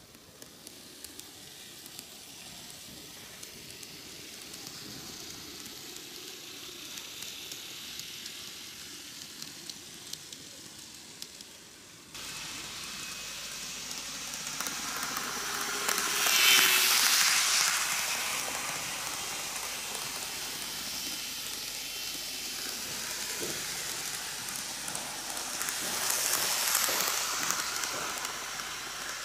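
N-gauge model electric trains running on track: a steady hiss of metal wheels rolling on the rails with small clicks at the rail joints. It swells as a train passes close about 16 seconds in and again near the end.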